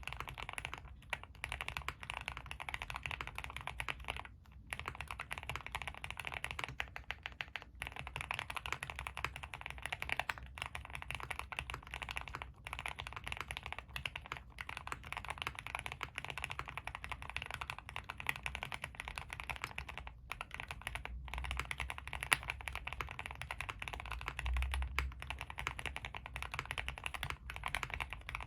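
Steady, fast typing on a custom Suit80 mechanical keyboard with Tealios v2 linear switches in Cherry top housings, GMK keycaps, an aluminium plate and full foam: a dense stream of keystroke clacks, broken by a few short pauses.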